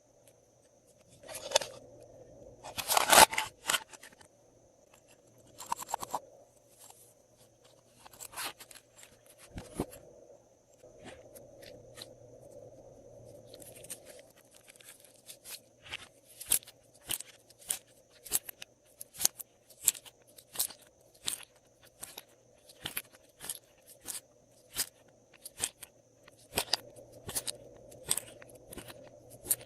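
Glossy slime worked by hand. A few louder crunchy, crackly squishes come in the first few seconds, then a steady run of sharp sticky clicks and pops, about two a second, in the second half.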